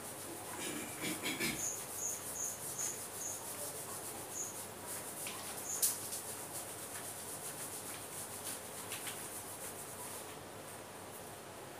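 Large sheets of chart paper being handled and pulled off a wall, rustling and crinkling, loudest in the first two seconds, with one sharp snap near six seconds. A run of short high chirps sounds about two seconds in.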